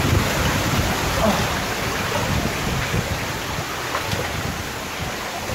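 Steady rush of flowing water, with low, irregular buffeting of wind on the microphone. The rush grows gradually fainter.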